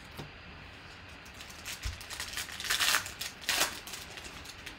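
Foil wrapper of a 2018 Panini Select football card pack being torn open by hand, crinkling in a few bursts, loudest about three seconds in.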